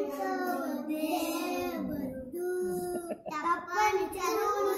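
A small group of young children singing a Telugu children's rhyme together.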